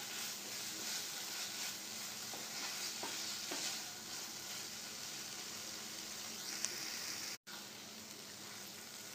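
Paneer and masala filling sizzling in oil in a nonstick frying pan while a wooden spatula stirs it, with a soft scrape of the spatula on the pan now and then.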